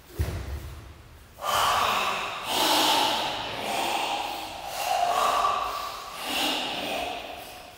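A thump just after the start, then about five long, forceful breaths, each a second or so, from several Goju-ryu karate practitioners doing the deep ibuki breathing of a kata.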